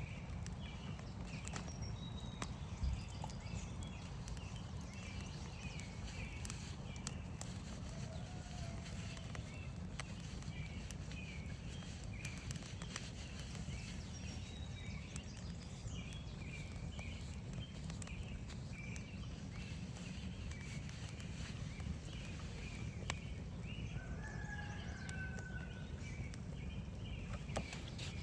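Campfire crackling with scattered sharp pops over a steady low stream rush, with birds chirping repeatedly in the background.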